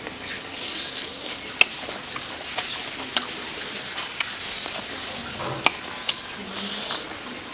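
Close-up eating sounds: wet chewing and the squish of fingers mixing sticky, gravy-soaked rice, with a few sharp mouth clicks and smacks through it.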